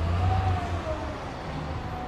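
Downtown street traffic: a heavy road vehicle's low rumble that fades about half a second in, with a faint siren wavering slowly up and down above it.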